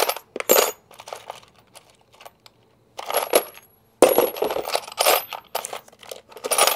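Loose steel sockets clattering and clinking against each other and the tool tray as they are rummaged through, with brief high metallic rings. The clatter comes in irregular handfuls, dies down for about two seconds after the start, and picks up again at about three and four seconds in.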